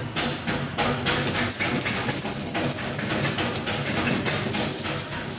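Stick (shielded metal arc) welding arc crackling steadily as the electrode runs a bead along a steel joint.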